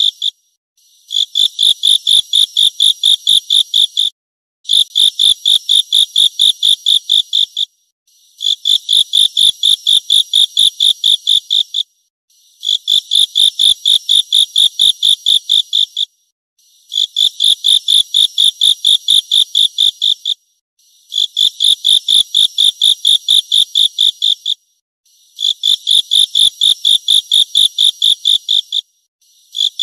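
Grasshopper stridulating in repeated high-pitched bursts of rapid chirps, about five a second. Each burst lasts about three seconds, with a short pause between bursts.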